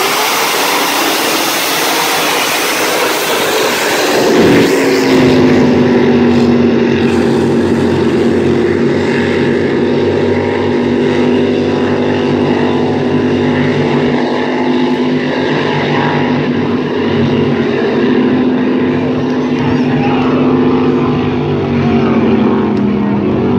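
Several racing inboard speedboats' engines running at full throttle from the race start, a loud, steady engine noise with a few held engine tones that dip and level off about four seconds in.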